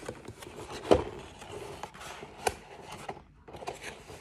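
Hands handling a paint set and its packaging: rubbing and scraping, with a sharp knock about a second in and a few lighter clicks later.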